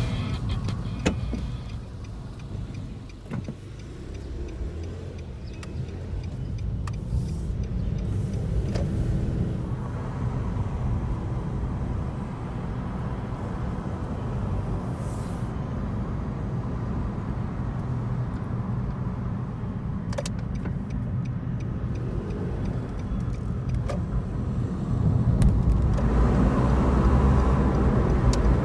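Car driving, heard from inside the cabin: a steady low engine and road-noise rumble. It grows louder about three seconds before the end as the car speeds up to merge onto a wider road.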